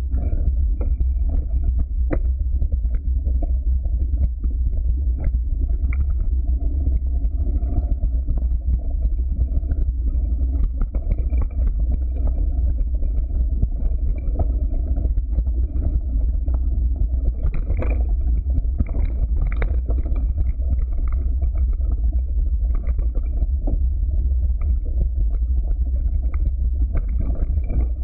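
Mountain bike descending a dirt, gravel and leaf-strewn trail, heard through a camera mounted on the bike: a steady low rumble of tyres and wind on the microphone, with frequent knocks and rattles as the bike goes over stones and bumps, the sharpest about 2 and 18 seconds in.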